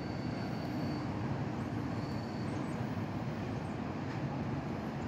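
Diesel engine of a Freightliner garbage truck running out of sight, a steady low rumble, with a faint high whine over it for the first couple of seconds.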